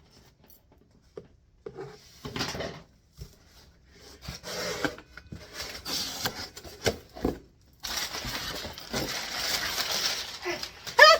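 Cardboard shipping box being opened by hand, the flaps and packing paper rustling and crinkling, with the longest and loudest rustle near the end.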